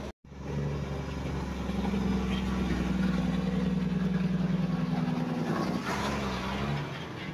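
Diesel engine of a heavy cab-over truck running steadily as it passes close by, with a low rumble under it. Around two-thirds of the way through, the engine note shifts and a brief rush of tyre and air noise rises.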